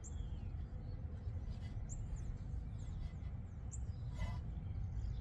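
Several short, high bird chirps over a steady low outdoor rumble.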